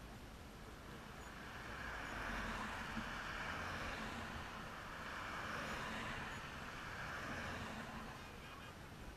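Wind gusting over the microphone, a steady rushing that swells and eases over a few seconds, with a low rumble underneath.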